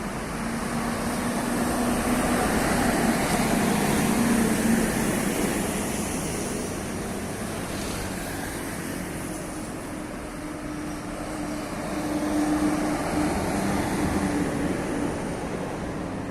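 Road traffic: steady vehicle noise with engines passing, louder about two to five seconds in and again around twelve seconds.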